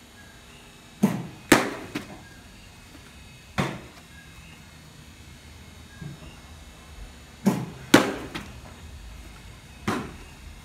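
Baseball smacking into leather catcher's mitts: six sharp pops, two pairs about half a second apart and two single ones.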